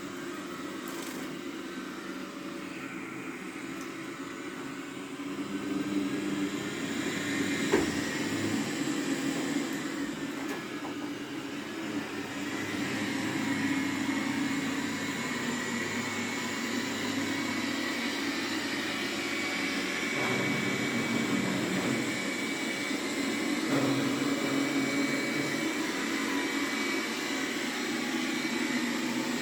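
Roborock Q7 Max robot vacuum running on a carpet: a steady drone from its suction fan and spinning brushes. The drone gets louder about six seconds in, and there is one sharp knock near eight seconds.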